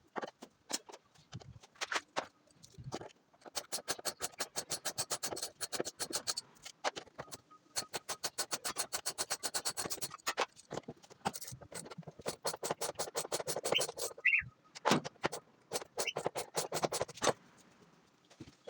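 Rapid mechanical clicking, about ten clicks a second, in several runs of two to three seconds each, with a brief high squeak about fourteen seconds in.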